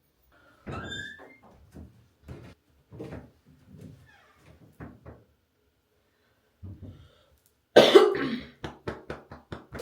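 A person coughing repeatedly, a string of short coughs with the loudest about eight seconds in followed by a quick run of shorter ones, from someone feeling unwell.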